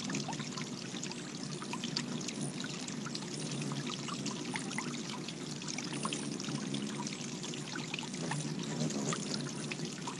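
Water bubbling up and trickling steadily over a flat fountain-style bird bath, with many short, high ticks scattered throughout.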